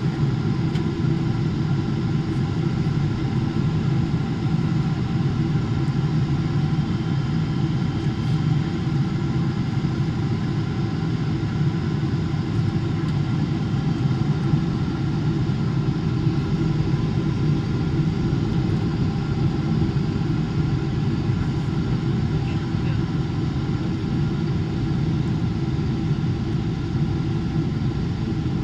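Steady cabin noise of a Boeing 777-300ER airliner in flight: a low, even roar of airflow and its GE90-115B engines, with several faint steady whining tones above it.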